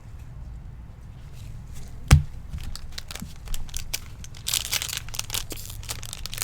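Foil wrapper of a trading card pack being torn open and crinkled, with small clicks of cards being handled. There is a single sharp knock about two seconds in.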